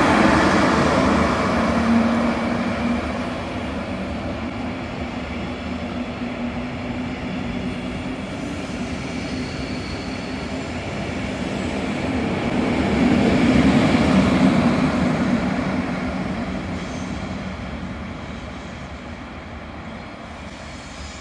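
Electric-hauled double-deck regional train, led by a DB class 112 electric locomotive, running past on the rails and pulling away. The sound swells about two-thirds of the way through as the coaches go by, then fades as the train recedes.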